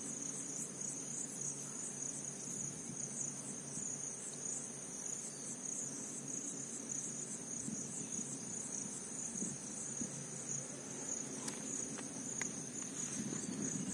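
Insects chirping in a steady, high-pitched trill, with a few faint clicks near the end.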